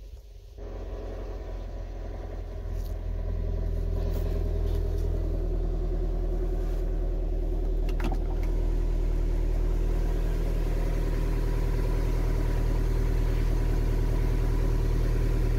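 Ford Transit Connect's diesel engine starting from cold, catching about half a second in and settling into a steady idle. The revs hold even with no hunting, a sign that the idle fault is cured.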